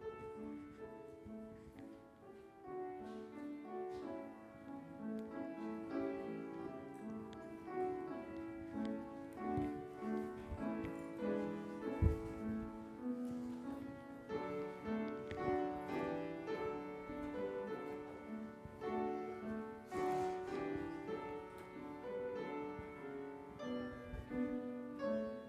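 Piano playing a slow instrumental piece of sustained chords, with one dull thump about halfway through.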